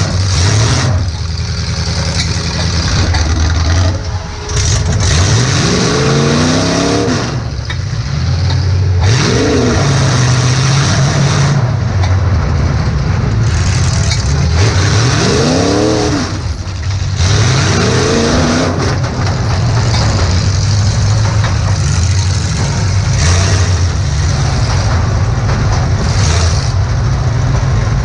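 Demolition derby car's engine, heard from inside the cabin, revving hard again and again, its pitch climbing and dropping back four or five times over a steady loud running note.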